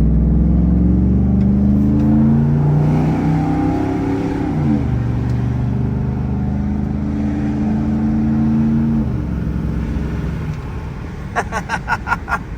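V8 car engine running loud, its pitch climbing and then dropping sharply about five seconds in and again about nine seconds in, after which it quietens. Near the end comes a quick run of about six short chirps.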